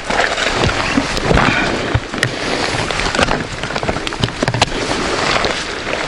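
Steady rushing noise of wind and rain on an action camera's microphone, with scattered sharp clicks and knocks from the motorcycle's luggage being handled.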